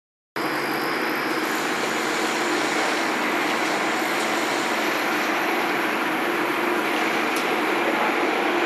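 Colloid mill running steadily while grinding chives into sauce: an even machine whir with a held low hum and a couple of faint ticks.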